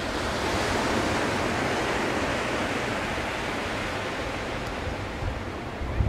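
Ocean surf on a sandy beach: a wave washing up the shore, swelling in the first second and slowly fading as it draws back.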